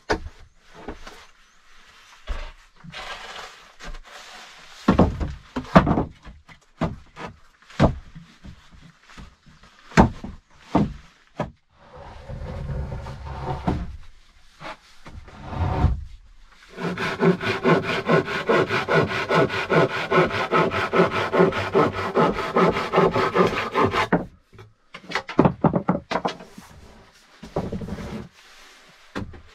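Wooden planks being handled and laid down: a run of separate knocks and scrapes of wood on wood, then a steady rasping stretch of about seven seconds, then more knocks near the end.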